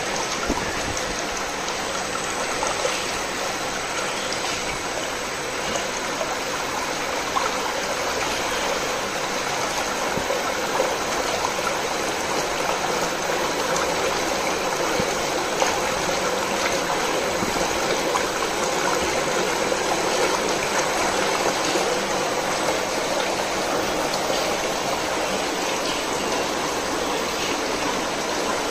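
Flameproof lab disperser running, its blade churning liquid in a metal tin with a steady rushing, splashing noise. The noise grows slightly louder as the motor's speed is raised on its variable-frequency drive.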